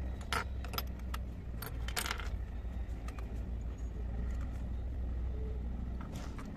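Tiers and lid of a miniature stainless-steel steamer pot clinking lightly against each other as they are picked up and stacked, a handful of short metallic clinks, over a steady low hum.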